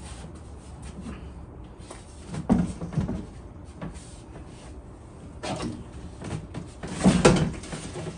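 Irregular clunks and knocks of hard parts being shifted inside a car's rear door as its window glass is worked loose, the loudest cluster about seven seconds in.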